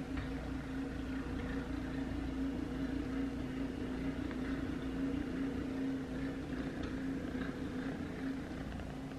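Munchkin kitten purring steadily right beside the microphone, a continuous low rumble.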